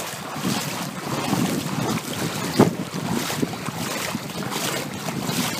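Feet wading through shallow water, splashing and sloshing with each stride, with one sharper splash about two and a half seconds in. Wind buffets the microphone throughout.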